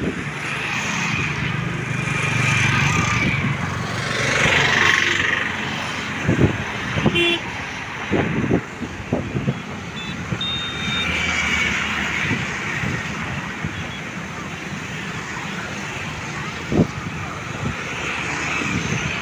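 Road traffic passing steadily, vehicles swelling by one after another, with two brief horn toots near the middle and a few sharp knocks.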